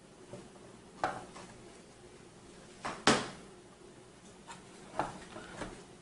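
Plastic heatsink retention pegs being pressed into the motherboard around the CPU socket: a few sharp clicks, the loudest about three seconds in.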